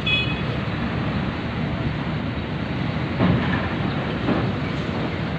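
Diesel dump truck engine running as the truck rolls down a ferry's steel bow ramp, a steady low rumble with rattling.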